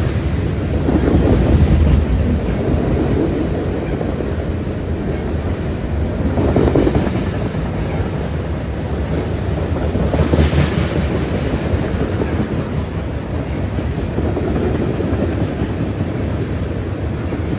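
A BNSF freight train's cars rolling past on the rails: a steady, loud rumble that swells and eases a few times.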